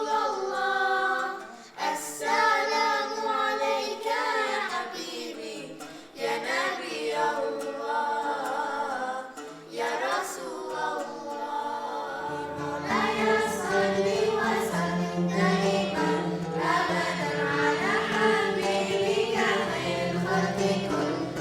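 A choir singing, the voices alone for the first half; about halfway through a steady low held accompaniment joins under the singing.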